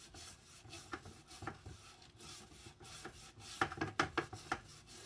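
Brass wire brush scrubbing a greasy engine part in a bucket of degreaser solution: irregular scratchy strokes of bristles on metal, with a run of louder, quicker strokes a little past halfway.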